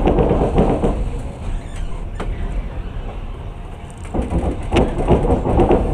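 Passenger train running, heard from inside the carriage: a steady low rumble of the running gear, with rattling that swells near the start and again from about four seconds in, and a few sharp clicks.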